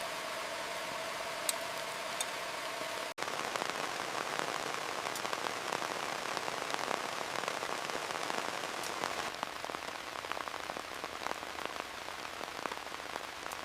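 Heavy rain falling steadily, a dense patter of drops. A brief cut comes about three seconds in, and after it the rain sounds denser, with many small drop ticks. A faint steady tone runs under the rain before the cut.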